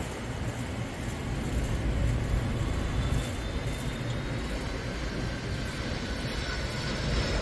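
Boeing 767-300 jet on final approach: a steady rumble, with a faint high engine whine coming in about halfway through as the airliner nears. Gusts of wind buffet the microphone under it.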